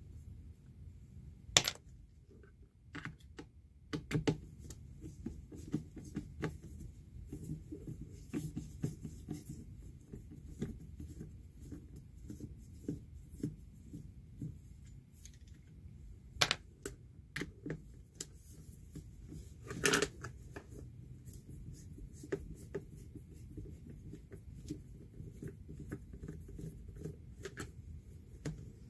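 Irregular small clicks, taps and light clatter of screws being worked out of the plastic housing of a Saniflo Sanicompact macerator toilet, with a few sharper knocks, the loudest about two-thirds of the way through.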